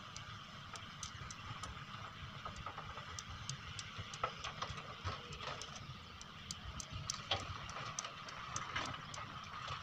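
Distant wheeled excavator's diesel engine running steadily at work, a low rumble, with scattered faint sharp ticks throughout.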